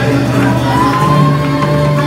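A live gospel band playing, with a steady bass note, and a man singing or calling out through a microphone over it; a long held note comes in about half a second in.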